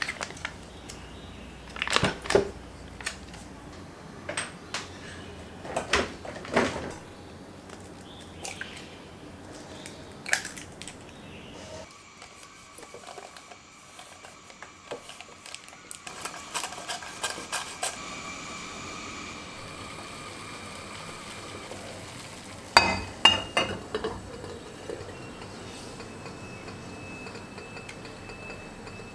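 Baking-prep sounds: scattered sharp clinks and knocks of utensils against glass and ceramic dishes, a few seconds apart, with a soft steady hiss for several seconds in the middle.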